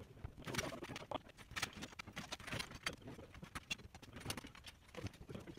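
Metal tubes of a folding kayak frame clinking and knocking as the frame is lifted and fitted together: irregular short metallic clicks and knocks.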